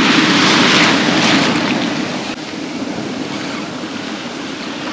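Ocean surf washing up the beach, with wind buffeting the microphone, louder in the first two seconds.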